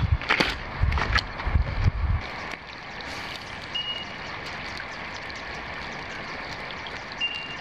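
Footsteps crunching and knocking over loose, rounded river stones for about two seconds, then a steady hiss. Two short, high beeps sound over the hiss, a few seconds apart.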